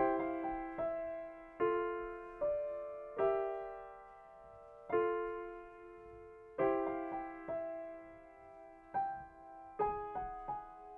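Grand piano played slowly and softly: single notes and chords in the middle register struck about every second or two, each left to ring and fade before the next.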